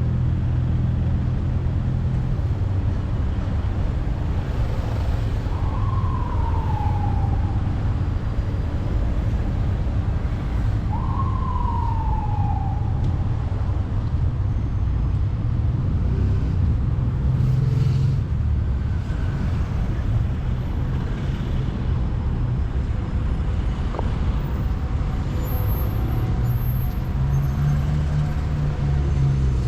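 Steady rumble of city street traffic, with two falling whistle-like tones a few seconds apart early on, each sliding down over about a second and a half.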